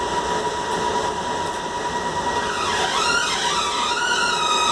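Van Hool ExquiCity double-articulated trolleybus under way, heard from inside the cabin: the electric traction drive whines over the rolling noise, its pitch dipping and then rising again from about halfway through, with a steady high tone underneath.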